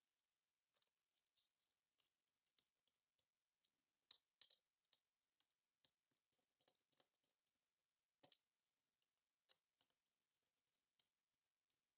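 Faint, irregular small clicks and ticks of a screwdriver tightening the screws of a laptop's bottom cover and handling the cover, with a sharper click about four seconds in and the loudest about eight seconds in.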